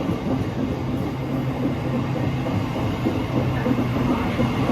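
Class 700 Thameslink electric multiple unit running through the station: a steady electric hum over the rumble of its wheels on the rails, slowly growing a little louder.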